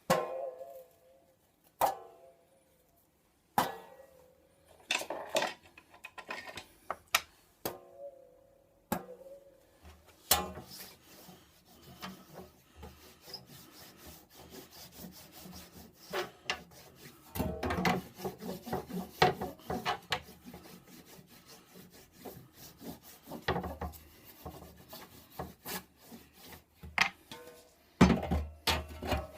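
Hand tools working wood: a few sharp knocks with a short ring in the first seconds, then irregular scraping and rubbing strokes on wood, turning into steady sawing about a second before the end.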